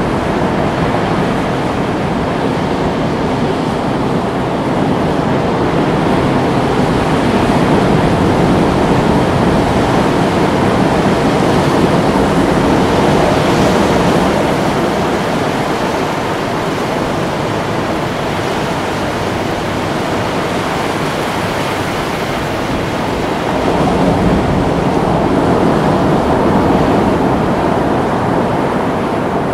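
Ocean surf: a steady rush of waves breaking and washing, swelling a little louder twice.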